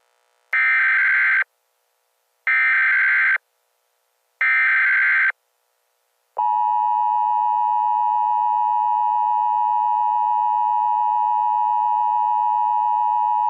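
Emergency Alert System broadcast tones announcing an emergency alert. Three short bursts of the SAME digital header come about two seconds apart, then the steady two-tone EAS attention signal starts about six seconds in.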